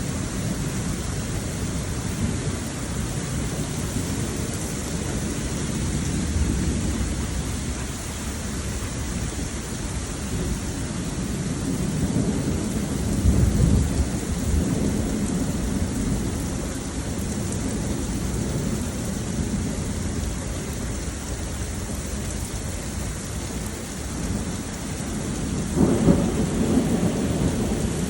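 Heavy rain falling steadily in a thunderstorm, with low thunder rumbling underneath. The thunder swells twice, about halfway through and again near the end.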